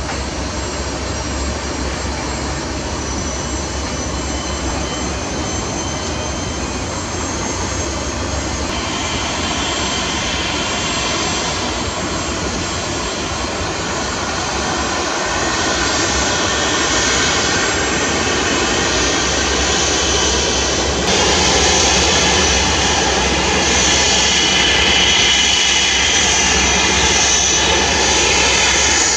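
Dassault Falcon 2000LX business jet's twin Pratt & Whitney Canada PW308C turbofans running at taxi power: a steady jet whine and rush that grows louder as the jet comes closer, stepping up suddenly about twenty seconds in.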